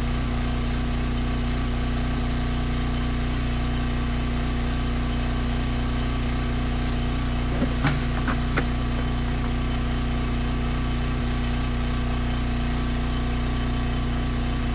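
An engine idling steadily, with a constant low hum that does not rise or fall. A few brief knocks come about eight seconds in.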